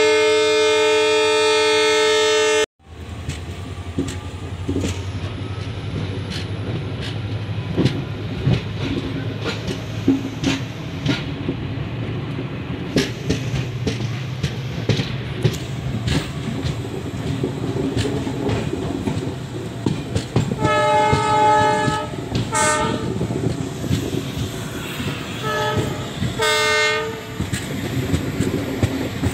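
Indian express train running, heard from on board: steady rumble with wheels clicking over rail joints. A loud train horn sounds at the start and cuts off suddenly, and more horn blasts come about twenty seconds in, a long one and a short one, then another a few seconds later.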